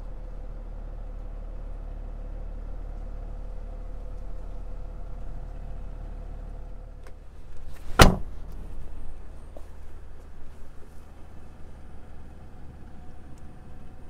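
Steady low hum with a faint steady tone, then one loud sharp knock about eight seconds in as a hand handles the car's rear seat, followed by a few lighter knocks and handling noise.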